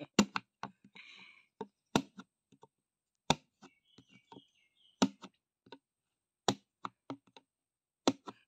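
Screwdriver tip prying and knocking at the plastic pour cap in the lid of a Servo engine oil bucket: a string of sharp plastic clicks and taps, the loudest about every second or so, with lighter ticks between.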